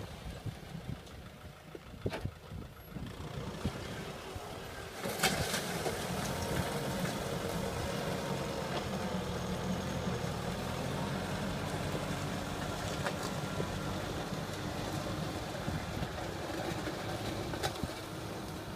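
Farm tractor's diesel engine running steadily as it pulls a disc implement through the field. The engine gets louder about five seconds in, with a sharp knock at that moment.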